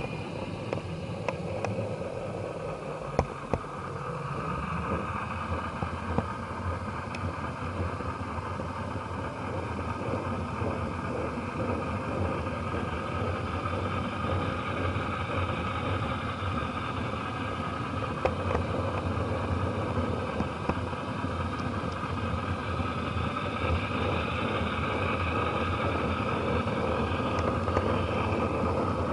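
Model train running along the track: a steady rolling rumble and motor hum, with a few sharp clicks, picked up from a car in the train through an action camera's waterproof case.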